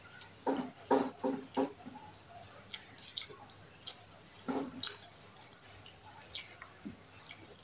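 Close-miked chewing of a mouthful of food, with wet mouth smacks: a quick run of four loud chews about half a second in, another pair near the middle, and small clicks between.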